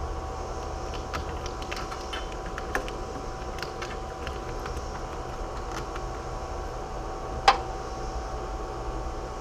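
Scattered small clicks and taps of parts and hand tools being handled during a battery tray install, with one sharp, much louder click about seven and a half seconds in, over a steady hum.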